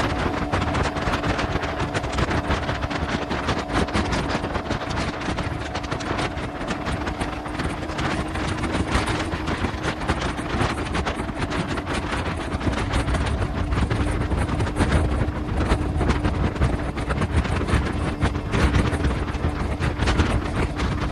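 Motorcycle riding at a steady cruising speed: the engine gives a steady hum, largely covered by heavy, gusty wind rush on the microphone.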